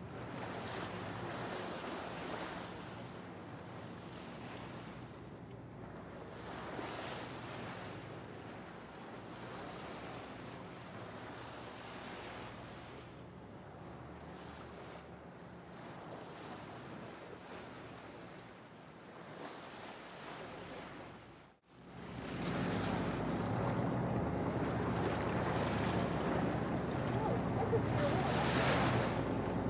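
Wind buffeting the microphone and choppy sea washing against a boat, over a low steady engine hum. The sound cuts out for an instant about two-thirds of the way through and comes back louder.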